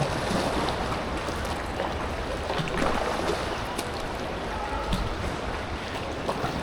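Rushing creek water around an inflatable kayak, with a few short splashes and knocks from paddle strokes.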